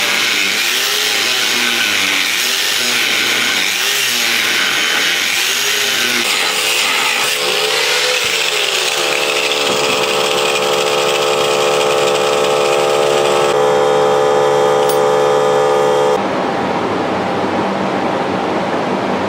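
Handheld power tool cutting a piece of aluminum plate: a loud, continuous cutting noise whose pitch dips and recovers repeatedly under load, later settling into a steady whine, with an abrupt change near the end.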